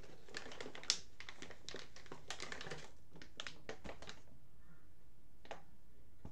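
Typing on a computer keyboard: quick, irregular runs of key clicks for about four seconds, then a pause and a single click near the end.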